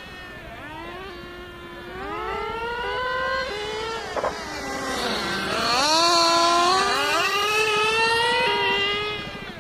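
Small nitro engines of two radio-controlled model cars, running high-pitched and revving up and down as the cars race. The pitch swoops and the sound is loudest a little past halfway, with a sharp drop in pitch as one car goes by.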